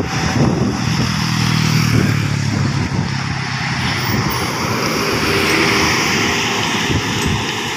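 Diesel engine of a Hino RK1JMT bus pulling uphill and passing close by, with a motorcycle going past near the start.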